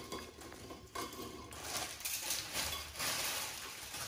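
Handling noises at a table: crisp rolled wafer cookies and a plastic bag knocked and rustled against a plate, a few sharp clicks then irregular rustling.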